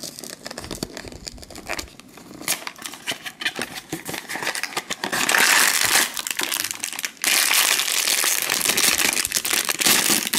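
Cardboard blind box handled and opened, with light clicks and rustles. From about five seconds in, the foil bag inside is pulled out and crinkled, louder and dense, with a brief pause partway through.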